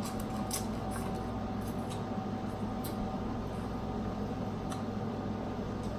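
Seafood boil being eaten: scattered small clicks and crackles of seafood being handled and chewed, mostly in the first few seconds, over a steady low hum.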